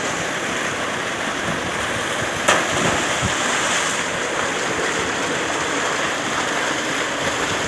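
Water from a pump's outlet pipe gushing steadily into a full concrete tank, splashing and churning the surface. One sharp click comes about two and a half seconds in.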